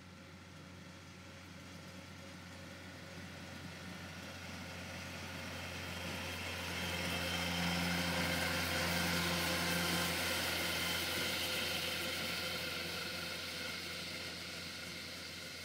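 Tractor towing a Saliba SA3000 gear-driven 3-metre turf mower, running steadily as it mows. It grows louder as it comes closer, is loudest as it passes about eight to ten seconds in, then fades as it moves away.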